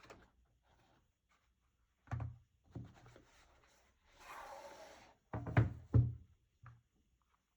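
Keyboard packaging being handled: a few light knocks, about a second of cardboard sliding or rustling, then two solid thumps half a second apart as the box is set down or opened.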